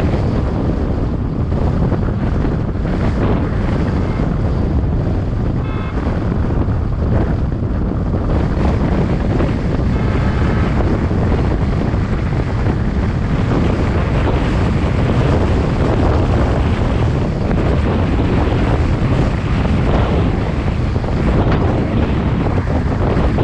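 Wind rushing over the microphone of a camera on a moving car, mixed with the car's road noise: a steady, loud, deep rush.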